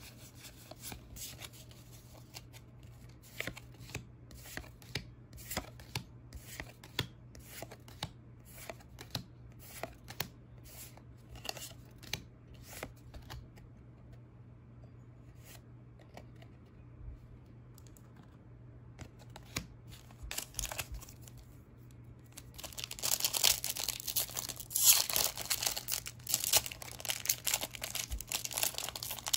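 Pokémon trading cards being handled and slid one by one off a stack, a soft click or tick every few tenths of a second with a quiet stretch midway. About 23 seconds in, a foil booster pack is torn open, with loud, dense crinkling and tearing of the wrapper.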